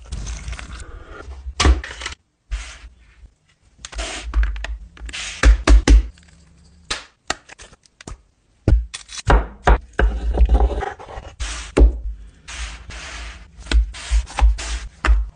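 Close-up food-prep handling sounds: a flour tortilla being folded and pressed down on a wooden cutting board, with many irregular thunks, knocks and scrapes broken by a few short silences.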